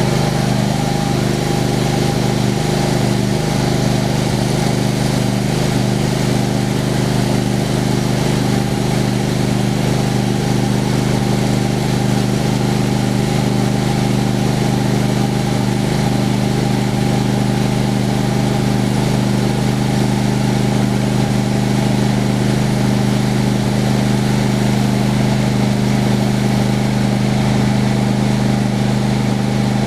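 Homemade sawmill's engine running at a steady speed, a constant drone that holds level throughout.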